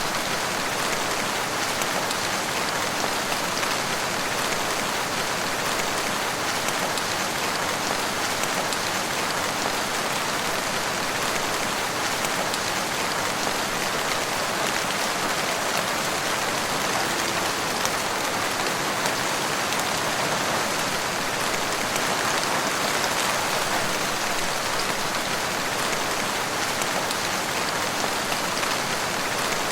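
Steady rain falling, an even hiss of drops pattering on surfaces without let-up.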